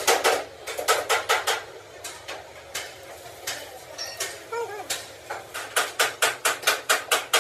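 Hammer blows on steel, irregular at first, then a quick steady run of about four strikes a second over the last two seconds.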